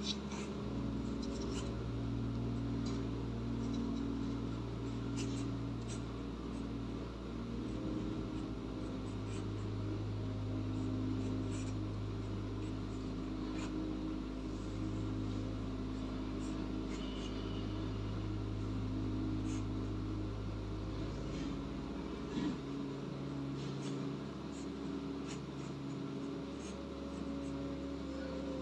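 Pencil sketching on paper: scattered short, faint scratching strokes. Over them, the loudest thing is a steady low drone whose pitch shifts every few seconds.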